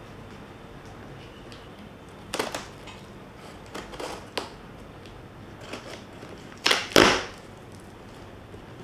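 Scissors cutting through packing tape on a cardboard box: several short scraping cuts, with the loudest pair near the end.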